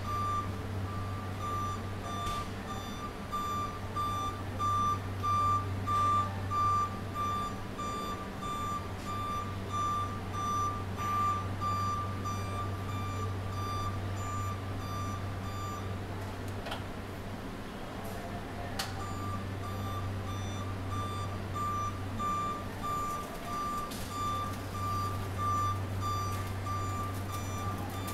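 Warning beeper of a Combilift Combi-CW walk-behind stacker sounding while it travels: a steady high beep about twice a second, falling silent for about three seconds a little past halfway, then resuming. A low electric hum runs underneath.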